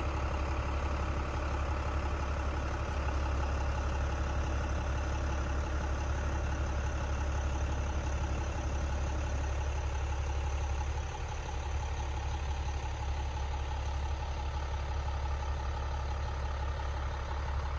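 A steady low engine hum, as of a vehicle idling.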